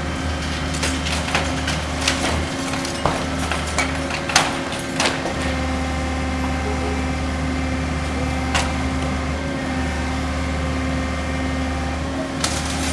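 Tracked excavator's diesel engine running steadily under load as its arm tears into a building, with sharp cracks and clatter of breaking wood and debris, most of them in the first five seconds and a couple more later on.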